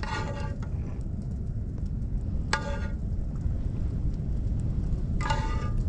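Wind rumbling on the microphone. Three short, pitched calls cut through it, each about half a second long and about two and a half seconds apart.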